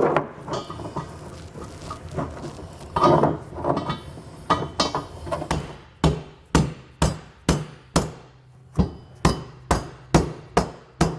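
Dead blow hammer striking a carriage bolt head on a steel base rail, knocking down a bolt that the rail's powder coating keeps from dropping into place. A few irregular knocks come first, then from about halfway on a steady run of strikes about two a second.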